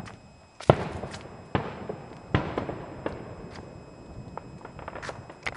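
Aerial fireworks bursting: three loud booms under a second apart, the first the loudest, each trailing off in a rolling echo, then a few smaller sharp pops near the end.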